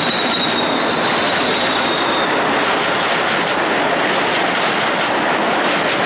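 Train wheels running on the rails: a steady loud rumble of rolling stock, with a faint high wheel squeal that fades out about two seconds in.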